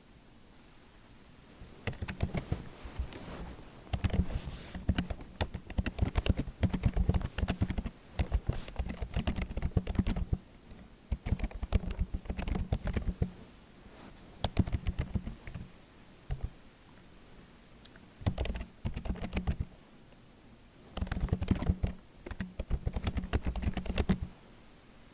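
Typing on a computer keyboard in bursts of rapid key clicks, with short pauses between the runs.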